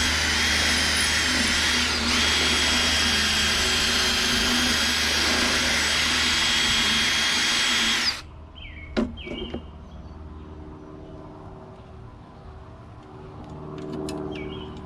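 Electric drill running under load while enlarging a small hole so the cable's Z-bend will fit, with a steady high whine that eases for a moment about two seconds in and stops abruptly after about eight seconds. Afterwards a click, then a bird chirping a few times near the end.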